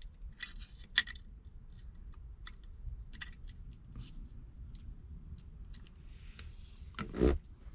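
Scattered light metallic clicks, taps and short scrapes from a rusty seat adjuster mechanism being worked apart with a screwdriver, with one louder thump near the end.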